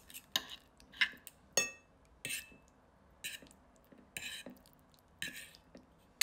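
Metal fork and knife clinking and scraping against a ceramic plate while cutting food, a short ringing tap or scrape about every half second to a second, about eight in all.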